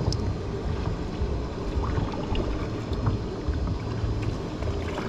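Water sloshing and dripping around a kayak being paddled, with scattered small splashes and ticks, over a low uneven rumble of wind on the microphone.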